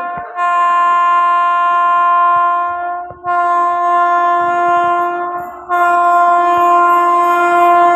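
Electric locomotive's horn on an approaching Indian Railways express, sounded in long steady blasts of a few seconds each, with short breaks about 3 seconds and 5.5 seconds in.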